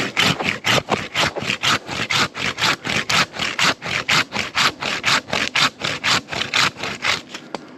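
Hand pruning saw cutting through a branch with rapid, even back-and-forth strokes, about four a second, stopping just before the end.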